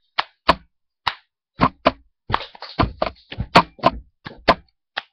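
An irregular run of sharp knocks and thumps, roughly three a second, some coming in quick clusters.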